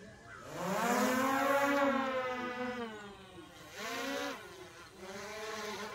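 DJI Mavic Air 2 quadcopter's motors and propellers spinning up for take-off: a buzzing whine that rises in pitch about half a second in and is loudest for the next two seconds as it lifts off and climbs. About four seconds in the pitch briefly dips and rises again, then it settles to a steadier hum.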